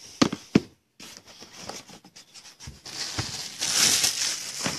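Trading card box and foil-wrapped card packs being handled: a few sharp clicks and taps in the first second, then rustling and crinkling of the packaging from about three seconds in.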